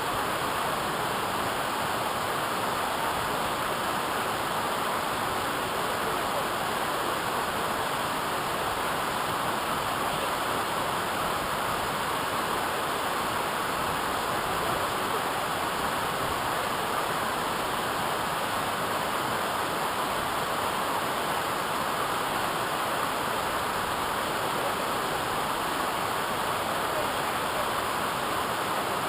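Waterfall rushing, a steady, even roar of falling water with no change.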